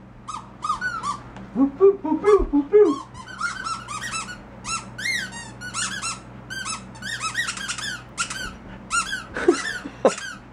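Squeaky ball toy squeaking over and over as a dog bites and chews it, in quick clusters of short squeaks that rise and fall in pitch, with a few lower-pitched squeaks about two seconds in.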